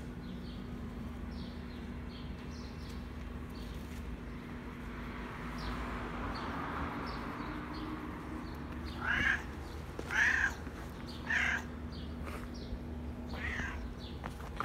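Cat meowing four times in the second half, each meow a short pitched call, over faint chirps of small birds.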